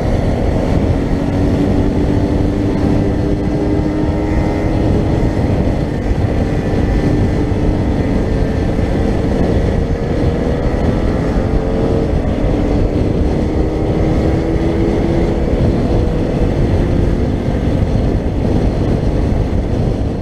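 Scooter engine running steadily at cruising speed, its pitch drifting slowly up and down, under heavy wind rumble on the microphone.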